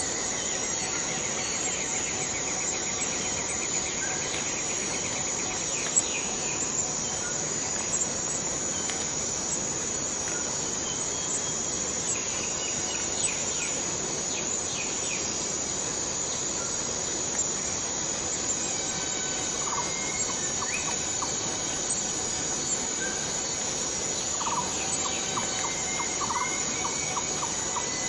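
Borneo rainforest ambience: a steady, high-pitched drone of cicadas, with scattered short chirps and trills over it and a run of quick repeated notes near the end.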